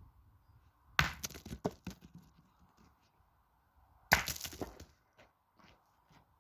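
Two pétanque shots about three seconds apart: each a sharp clack of a thrown steel boule striking, followed by a brief rattle of smaller knocks as the boules bounce and roll.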